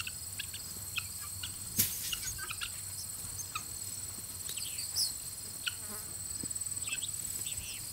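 Steady, high-pitched trilling of insects in the farmyard, with scattered short chirps over it.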